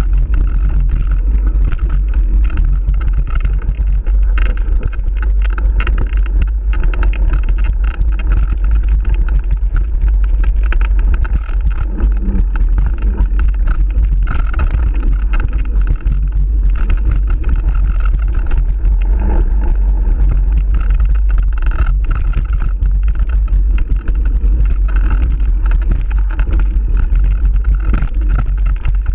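Heavy, steady wind rumble on a camera's microphone during a fast mountain-bike descent, mixed with the constant rattle and knocking of the bike jolting over a rough dirt trail.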